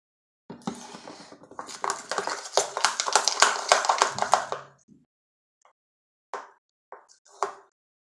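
Homemade shampoo slime being worked in its container: a run of sticky, crackling clicks and squelches lasting about four seconds, then a few short squishes near the end.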